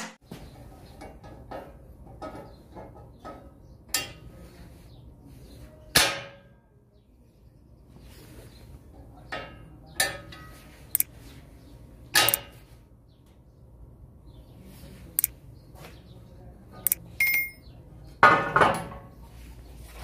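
Scattered metal clinks and knocks, a dozen or so, from handling a home-made steel sliding bolt lock: the bolt worked in its square-tube frame and the frame shifted on a steel workbench.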